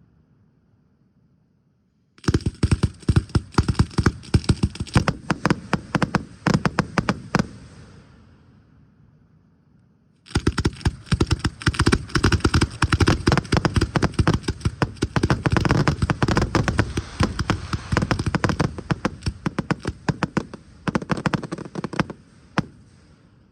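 Fireworks going off in dense volleys of rapid sharp cracks and pops, in two spells: a short one starting suddenly a couple of seconds in, then after a lull a longer one that runs until it stops abruptly near the end.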